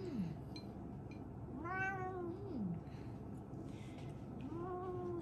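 Domestic cat meowing in long drawn-out calls: the end of one just at the start, a full meow about one and a half seconds in that drops in pitch as it ends, and another starting near the end.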